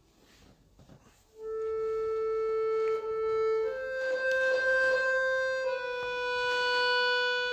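Solo accordion entering after a brief hush, about a second and a half in. It plays a slow melody in long held notes, stepping upward in pitch twice.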